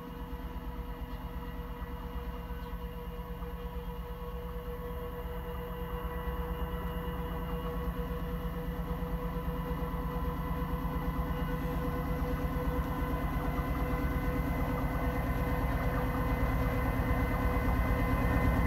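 Diesel locomotives of an approaching heavy-haul iron-ore freight train: a low engine rumble with a few steady tones above it, growing steadily louder as the train nears.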